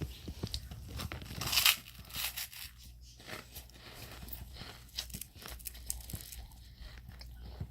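A plastic snack wrapper crinkling and tearing open, with scattered crackles; the loudest rustle and rip comes about a second and a half in.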